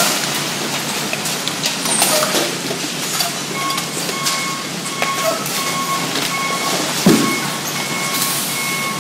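A load of mixed recyclables (cans, bottles, plastic jugs and paper) sliding and clattering out of a tipped side-loader recycling truck's box onto a concrete floor, a dense rattling hiss. From about three and a half seconds in, a vehicle's warning beeper sounds about one and a half times a second, and a single dull thud comes near the end.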